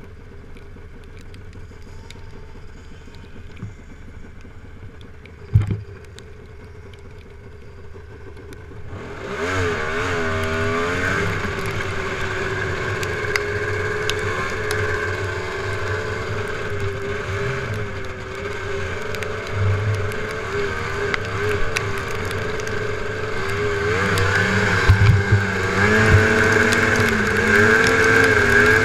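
Snowmobile engine idling low, with a single knock about five and a half seconds in. About nine seconds in it revs up and the sled pulls away, the engine pitch rising and falling as it runs along the trail, louder near the end.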